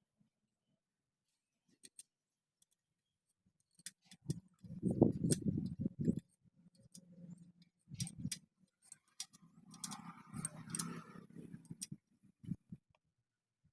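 Scattered sharp clicks and dull knocks in irregular groups, the loudest cluster about a third of the way in, after a few seconds of near quiet.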